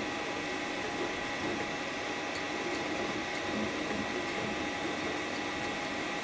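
Creality CR-10S Pro 3D printer running with a rattle, under a steady whine.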